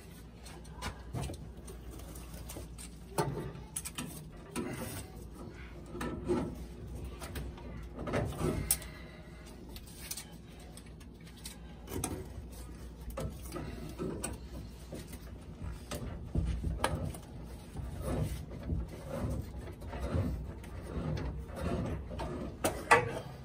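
Scattered clicks, taps and scraping of a gloved hand working at overhead heating-pipe fittings, loosening an old automatic air vent, over a low steady hum.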